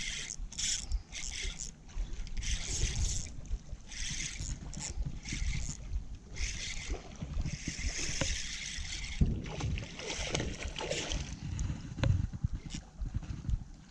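Wind gusting over the microphone and water lapping against the rocks at the shoreline, heard as irregular rushes of hiss over a low rumble.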